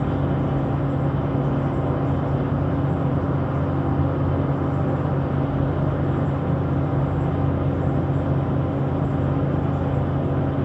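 Railroad track grinder at work on the rails: a steady, unbroken machine drone with a low hum under a broad grinding hiss.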